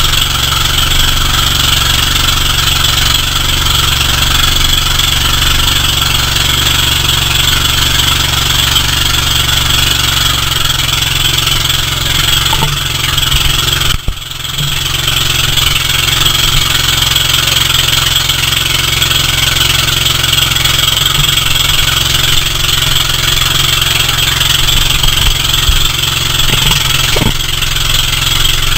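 Engine of a motorized outrigger boat (bangka) running steadily underway, with water rushing past the hull and outrigger. The sound dips briefly about halfway through.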